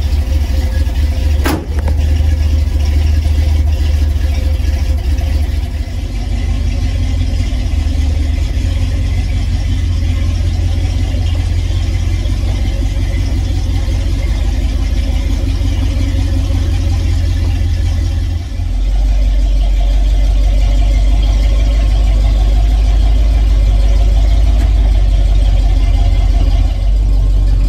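Classic Ford pickup's engine running steadily at idle. About a second and a half in there is a single sharp bang as the hood slams shut. Later the engine is heard from inside the cab as a deeper, steady rumble.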